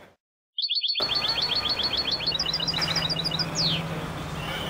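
A songbird sings one song after a brief dropout of dead silence: a fast run of evenly repeated sharp notes, then a run of higher notes, ending in a single falling note.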